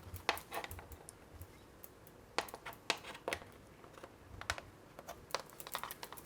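African grey parrot's beak tapping and nibbling at the metal face of a YouTube Silver Play Button: irregular sharp clicks, a dozen or so, unevenly spaced.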